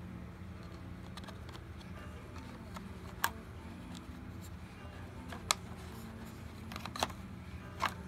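Several sharp plastic clicks, about three to five seconds apart then closer together near the end, as a Robit V7S Pro robot vacuum's dustbin is opened and its blue filter frame is handled, over a steady low hum.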